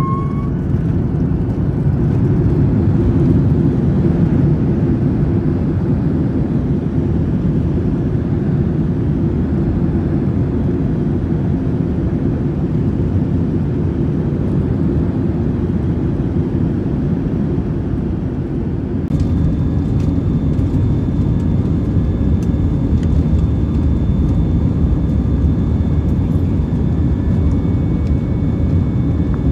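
Cabin noise inside a jet airliner rolling down the runway after landing: a steady, loud low rumble of engines and wheels. About two-thirds through the sound changes suddenly to the jet engines running on the runway before takeoff, a steady rumble with a thin high whine over it.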